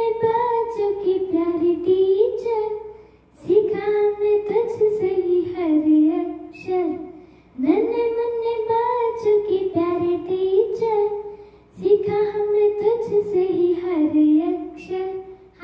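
A young girl singing a Hindi song solo, without accompaniment, in four phrases of about three and a half seconds each with short breaks between them.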